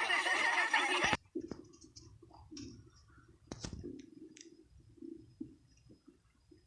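A cartoon soundtrack with music and a voice cuts off abruptly about a second in. Then a stomach growls: faint, irregular gurgles, with a few small sharp clicks.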